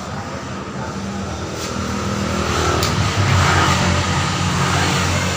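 A motor vehicle engine running, growing louder through the middle and easing off near the end.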